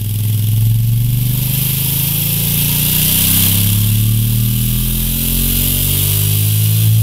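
2016 Honda CRF1000L Africa Twin's 998 cc parallel-twin engine running on a dynamometer through its stock silencer, a steady drone with engine speed creeping slowly upward, over a steady hiss.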